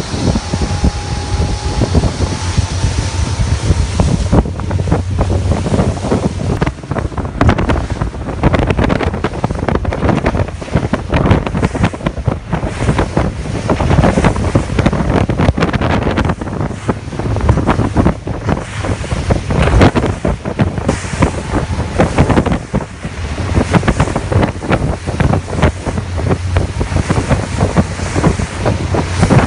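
Heavy wind buffeting the microphone on a speeding motorboat, in uneven gusts, over rushing water and the low drone of the tenders' engines.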